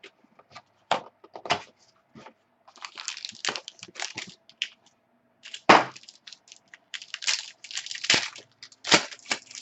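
Sealed box of trading cards being opened by hand: irregular crackling and snapping of wrapper and cardboard, with a loud sharp snap a little past halfway.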